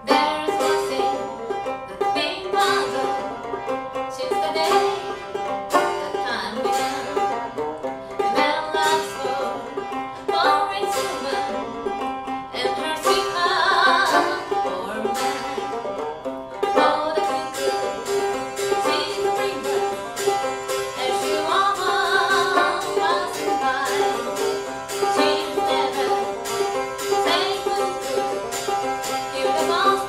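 Live acoustic duet: a skin-headed banjo picking an old-time tune, with a long held note droning beneath it. A woman's singing voice comes in briefly a few times, the last near the end.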